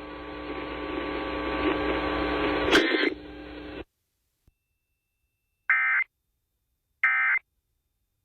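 Hiss with a steady hum that ends in a brief crackle and cuts off suddenly about four seconds in. After a short silence come two short, shrill EAS digital data bursts (SAME end-of-message code) about a second apart, marking the end of the emergency alert test.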